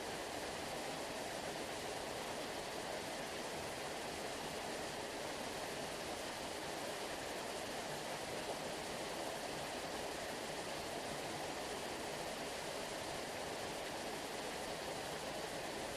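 Sea water rushing in a steady, even hiss like a waterfall, with no rise and fall of separate waves.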